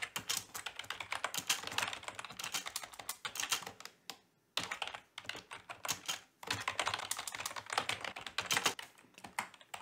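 Computer keyboard being typed on in quick runs of keystrokes, with a short pause about four seconds in.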